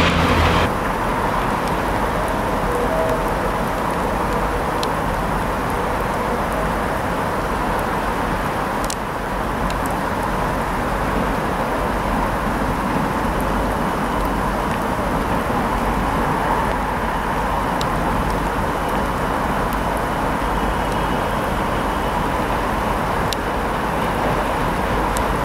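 Steady rumble and hiss of railway and traffic background noise, unchanging in level, with a few faint clicks.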